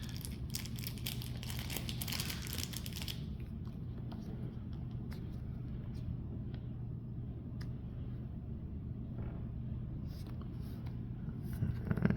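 Foil booster-pack wrapper of Pokémon cards being torn open and crinkled for about three seconds, then quiet handling of the cards with faint ticks over a steady low hum.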